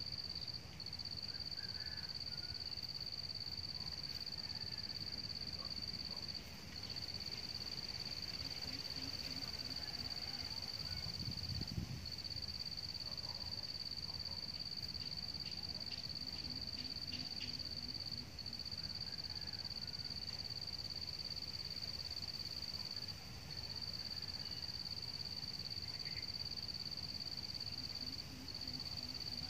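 A steady high-pitched insect drone that breaks off briefly every few seconds. Under it, faint runs of low, quick hoots come a few times: coucals calling, as a decoy coucal does to lure wild ones to the trap. A single low thump about twelve seconds in.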